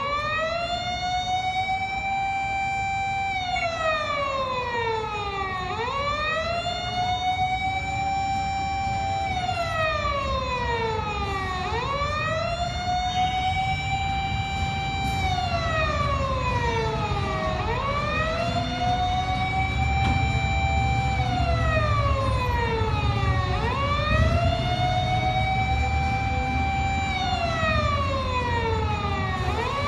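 Electronic police-style siren wailing: its pitch climbs, holds and falls again about every six seconds, over a low, steady engine rumble.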